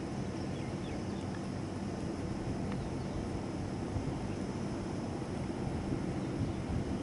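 Steady low background rumble with a faint mechanical hum in it, and a few faint, brief high ticks.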